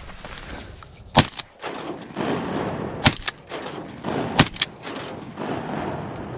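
Three shotgun blasts in about three seconds, the second and third closer together than the first two.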